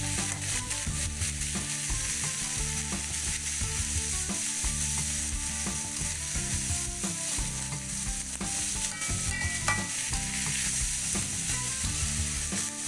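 Shredded vegetables sizzling in hot oil in a metal wok, stir-fried with a metal spatula that scrapes and clicks against the pan many times. The vegetables have just gone in on top of fried garlic and candlenut paste and are being cooked until they wilt.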